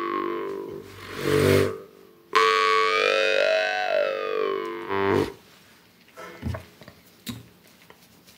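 Yuriy Vashkovych drymba, a steel jaw harp with a soft reed, being plucked and played. A low, ringing drone is shaped by the mouth: one note fades out at the start and a short pluck comes about a second in. A long note starts about two seconds in, its overtone melody sweeping up and back down before it stops about five seconds in, followed by a few faint clicks.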